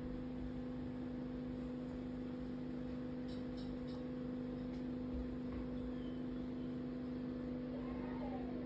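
Quiet room tone dominated by a steady low hum, with a few faint short chirps near the end.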